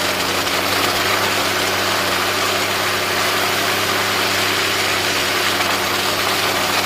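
Off-road vehicle's engine running steadily at a constant pitch, under a steady loud hiss.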